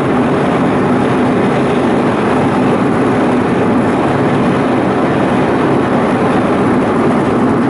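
Steady road and engine noise of a moving vehicle heard from inside, a constant rumble that holds the same level throughout.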